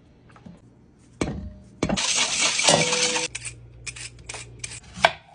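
Dishes and utensils clinking and knocking, with a loud rushing noise for about a second and a half near the middle.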